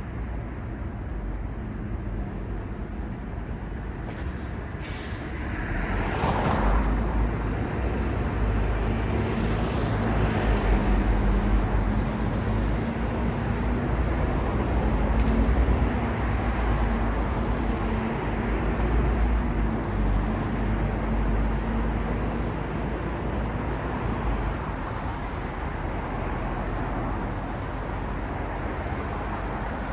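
City street traffic with a heavy vehicle passing. A short hiss comes about five seconds in, then a steady low engine hum swells and fades away.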